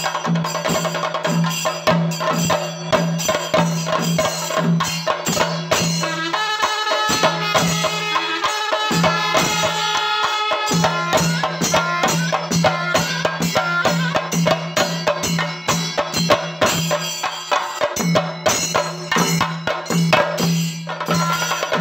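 Chenda melam: several chenda drums beaten with sticks in a fast, dense rhythm, over a steady low drone. A kuzhal double-reed pipe plays a melody over the drums, clearest from about six to eleven seconds.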